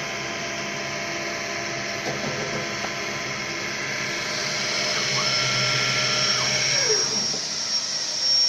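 Cosen CNC315K CNC wood lathe running, its motors giving a steady whine made of several tones. About seven seconds in, one tone falls in pitch as the motor slows, while a higher whine carries on.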